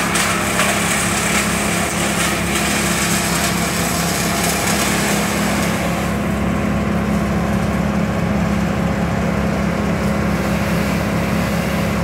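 A tree-service machine engine running at a steady speed, a constant low drone. A higher hiss lies over it for the first half and fades about six seconds in.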